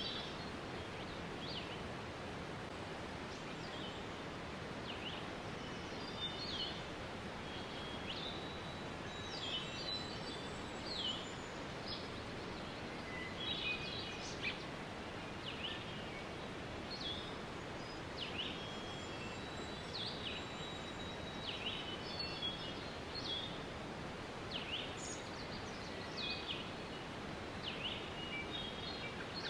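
Waterfall rushing steadily, with songbirds calling over it in many short chirps, quick downward-sweeping notes and brief trills.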